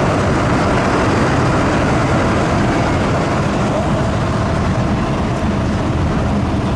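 Heavy diesel engines running steadily: a loud, even rumble with a hiss over it.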